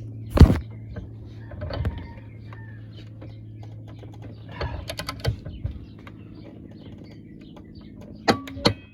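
A loud knock about half a second in, then scattered clicks and knocks of tools and a phone being handled, with a faint low hum underneath; there is no run of impact-wrench hammering.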